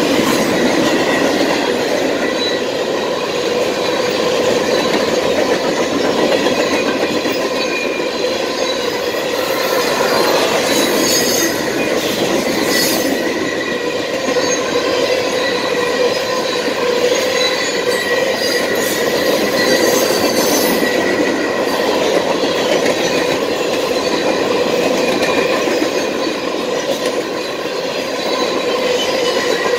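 CSX manifest freight train's cars rolling past a grade crossing, a steady loud noise of steel wheels on rail with steady high-pitched tones over it and a few clicks about ten to thirteen seconds in.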